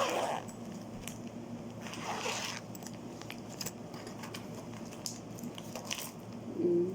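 Plastic packaging crinkling and rustling in short bursts, with a few small clicks, as small accessories are handled out of their wrapping.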